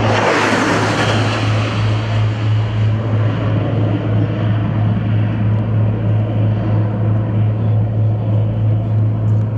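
Aircraft passing overhead: a rushing engine noise that swells at the start, peaks about half a second in and fades over the next few seconds, over a steady low hum.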